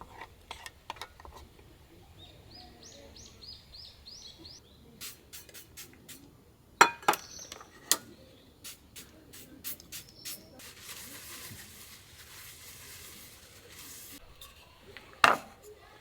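Sharp clinks and taps of tableware being handled, the two loudest about seven seconds in and near the end. A bird sings a quick run of about eight rising chirps around three seconds in, and a steady hiss lasts a few seconds in the middle.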